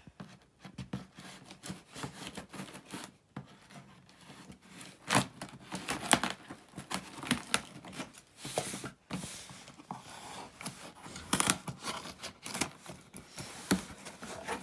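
Cardboard shipping box being opened with scissors: packing tape slit and torn and cardboard scraped, in short irregular rasps and clicks.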